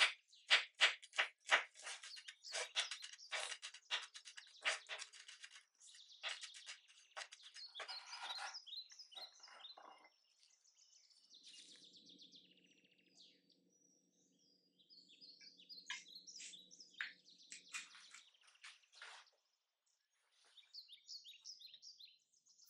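Chef's knife chopping garlic cloves on a wooden cutting board: quick, even strokes about three a second, slowing and growing more scattered before stopping around ten seconds in. A fainter low steady hum and scattered light high sounds follow.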